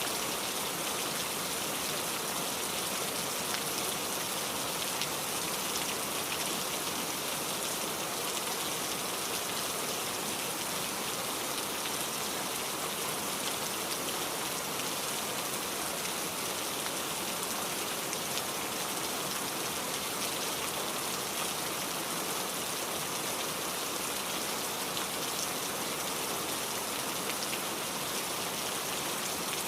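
Heavy rain falling steadily, a dense even hiss with many small drops pattering on a hard surface.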